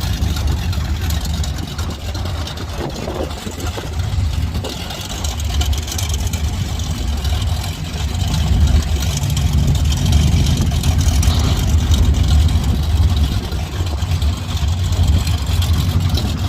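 Big-block Chevy V8 of a drag-race Camaro running with a steady low rumble, getting louder about halfway through.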